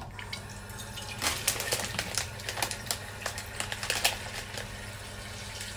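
Plastic instant-noodle packet crinkling and rustling as it is handled, a run of irregular small clicks and crackles, over a low steady hum.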